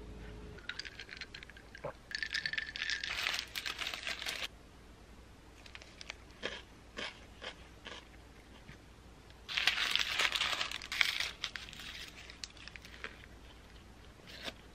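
Paper wrapping crinkling and rustling as a chicken tortilla wrap is unwrapped, in two spells: from about a second in to about four seconds, and again around ten seconds in. Small clicks and taps come between.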